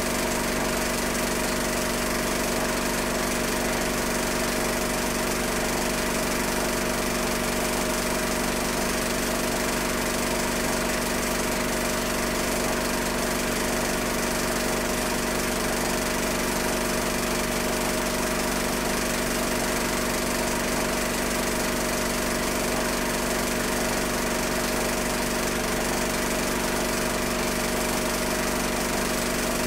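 A small motor's steady, even drone over hiss, with no change in pitch or level.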